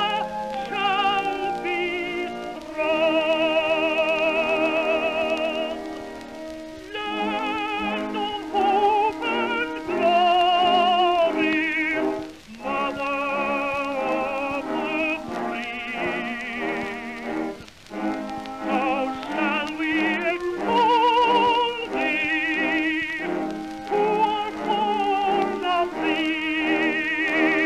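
Background music: a classical singer in operatic style, with a wide vibrato, holding sung notes over an accompaniment.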